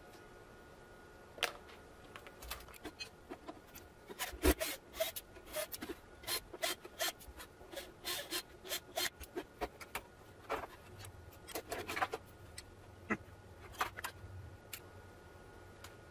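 Handling noises from a solar inverter's case being moved about and opened on a workbench: an irregular run of clicks, knocks and scrapes, busiest in the middle, with the loudest knock about four and a half seconds in.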